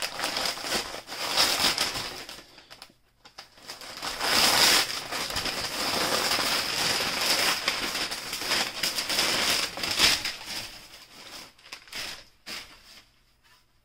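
Crumpled packing paper rustling and crinkling as it is handled and pulled out of a cardboard box. There is a short break about three seconds in, then a longer, louder stretch, and it dies down near the end with a few small clicks.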